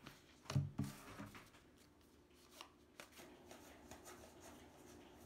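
2018 Topps Heritage baseball cards being flipped and slid through the hands, a faint rustle with a few light clicks as the card stock moves. Two short low vocal sounds come about half a second in.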